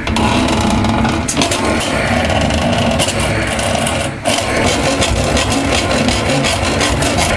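Handsaw sawing into a fridge cabinet's plastic casing beside its copper refrigerant pipe, in continuous rough strokes with short breaks about a second in and about four seconds in.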